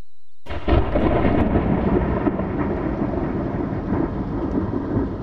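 Thunder sound effect: a sudden crash about half a second in, then a rumble that slowly fades.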